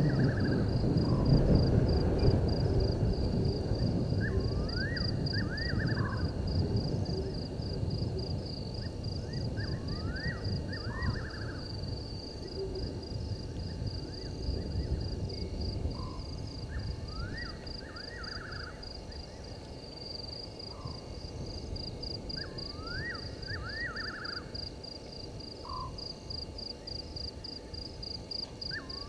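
Night bush sounds: a steady, pulsing insect trill high up, and a short call of several rising notes repeated about every three to four seconds. Beneath them runs a low rumbling noise, loudest in the first few seconds and fading after.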